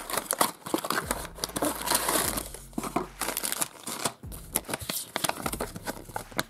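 Crinkling and rustling of packaging being handled: a small cardboard box is pried open and its plastic packet and paper insert card are pulled out, in many irregular short crackles and clicks.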